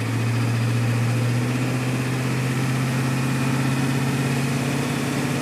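Ford 7.3-litre IDI V8 diesel of a 1989 E-350 van pulling under acceleration up a hill, heard from inside the cab as a steady low drone.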